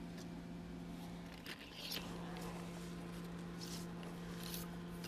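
Faint rustles and light handling noises from setting up fishing gear on an aluminium rod-rest frame, a few soft scrapes about two seconds in and again near the end, over a steady low hum.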